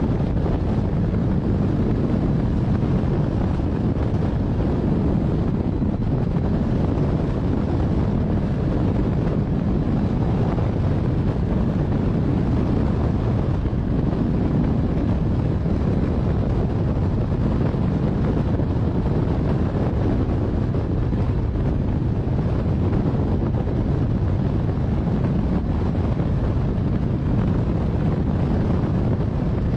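Steady, loud wind rushing over the microphone of a camera mounted on a hang glider in flight.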